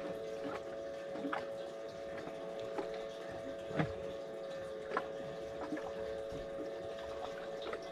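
Water lapping against a small boat's hull, with a few light knocks, over a steady hum.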